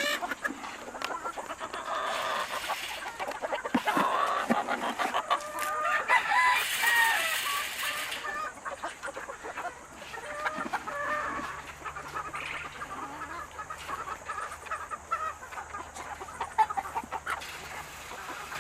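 Game chickens in their pens clucking, with roosters crowing; the calls are busiest in the first half.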